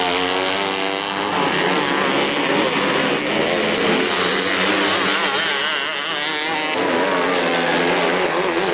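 Engine of a 250cc winged micro sprint car racing on a dirt oval, its pitch rising and falling as it is throttled through the turns.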